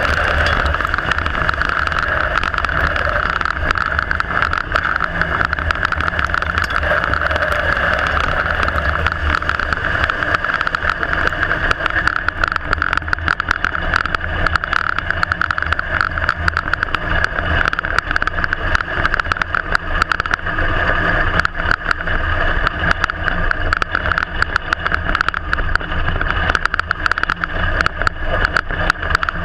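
IMCA Modified dirt-track race car's V8 engine running hard at racing speed, heard from inside the cockpit as a loud, steady drone. Many short sharp ticks and knocks sound over it throughout.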